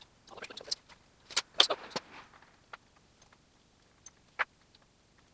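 Metal parts and hand tools clinking and knocking while a hub puller is fitted to a car's rear hub. A quick run of sharp clicks comes in the first two seconds, then a few single taps.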